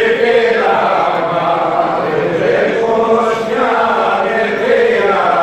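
A group of men singing a Greek folk song together in unison, in long held, chant-like phrases.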